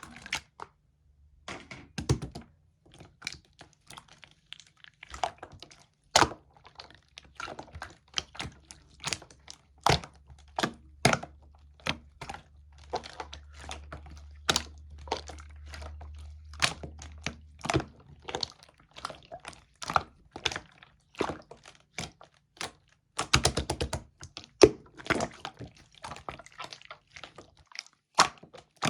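Slime being pressed and played with by hand, making irregular sharp clicks and pops about two or three a second. There is a fast flurry of them about three-quarters of the way through.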